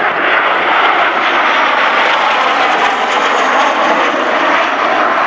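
English Electric Canberra PR.9's twin Rolls-Royce Avon jet engines as it flies past, a loud steady jet noise, with a faint high whine that falls in pitch about three seconds in.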